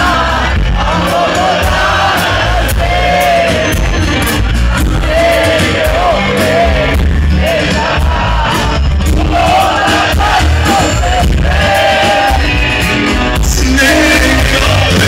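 Loud amplified live band: drums and bass keeping a steady beat under a male voice singing a wavering, ornamented melody line in Balkan folk style, with a quick drum fill near the end.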